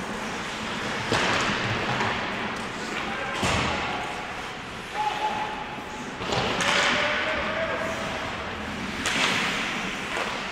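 Ice hockey play in an echoing indoor rink: sharp cracks of stick and puck, some against the boards, come every two to three seconds over the steady scrape of skates on the ice. A short call from a player is heard midway.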